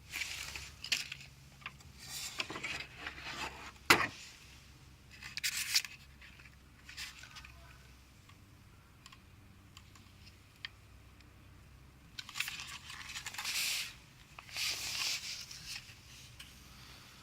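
Packaging and parts being handled during unboxing: irregular bursts of rustling and scraping, with one sharp knock about four seconds in.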